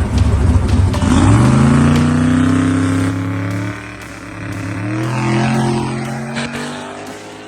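Drag race car making a hard full-throttle pass: a loud rumble at the launch, then the engine note climbs, drops suddenly at a gear change a little under four seconds in, and climbs again before fading away.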